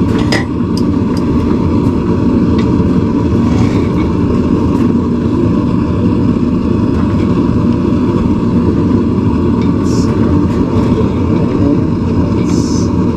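Blacksmith's forge running with a steady low rushing noise, with a few faint metal clicks and a short hiss near the end.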